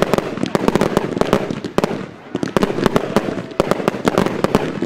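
Aerial fireworks bursting in rapid, overlapping succession in a finale barrage: many sharp bangs a second over a crackling haze, with a brief lull about two seconds in.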